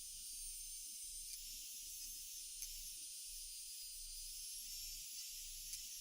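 A steady, high-pitched hiss with faint whistling tones running through it.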